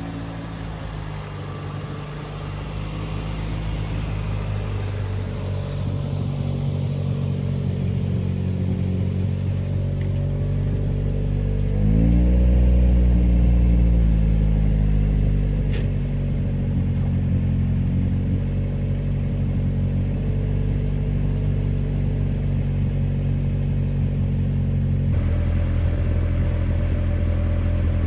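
1996 Acura Integra GSR's four-cylinder engine idling through a new aftermarket cat-back exhaust. About halfway through it is given one quick rev that rises and falls back to idle within a couple of seconds, and the tone changes slightly near the end.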